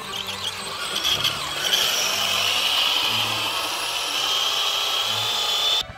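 Electric motor of a 4x4 RC crawler whining at high revs as its wheels spin in deep mud, the car stuck. The whine builds over the first couple of seconds, holds steady and cuts off just before the end.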